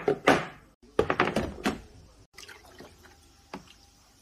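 Plastic clip-lock food storage containers knocked down onto a stone countertop and handled, their lids clicking: a few sharp knocks at the start, then a quick run of clicks about a second in.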